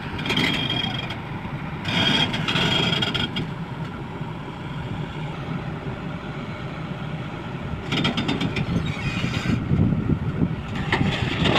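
Heavy construction machine's diesel engine running steadily. Four times it is overlaid by a louder burst of higher-pitched noise lasting one to two seconds.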